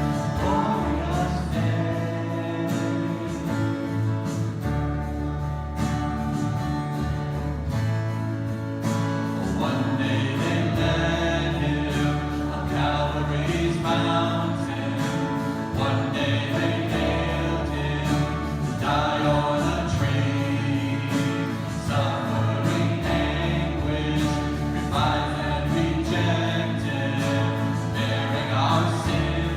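A congregation singing a hymn with instrumental accompaniment.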